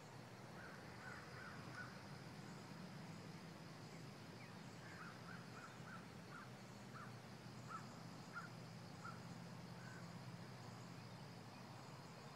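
Faint short bird calls: a few about a second in, then a quick series of a dozen or so from about five to ten seconds. Under them run a steady thin high tone and a low hum.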